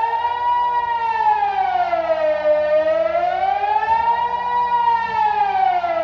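Delta 4 civil defence siren sounding the Swiss general alarm (Allgemeiner Alarm) in a siren test: a loud wailing tone that rises and falls slowly and evenly, about one full rise and fall every four seconds.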